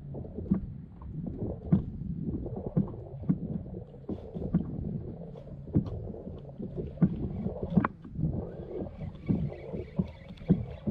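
Water slapping against the hull of a fishing kayak, a low rumble broken by irregular knocks and thumps several times a second.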